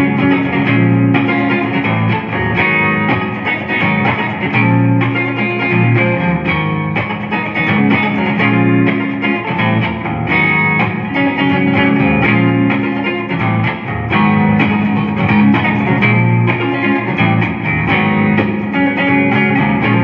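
Jonah Custom Deluxe '69 electric guitar played clean through a Champion 40 amp with a little reverb, a steady flow of plucked chords and single notes.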